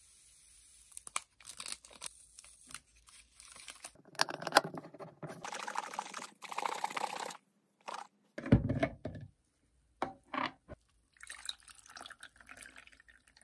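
Mango juice powder and water being mixed: a spoon stirs and clinks against a glass jar, then the juice is shaken hard in a closed container for a few seconds, followed by a few knocks. Near the end the juice is poured over ice into a glass.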